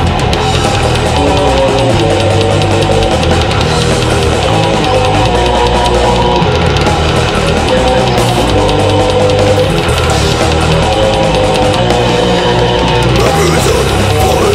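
Heavy metal band recording: distorted electric guitars, bass and drum kit playing loud and dense.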